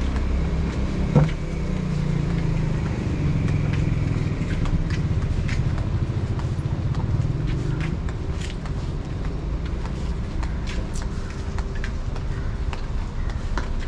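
Steady low rumble of car engines and street traffic, a little louder through the first half, with scattered footsteps on the pavement and one sharp knock about a second in.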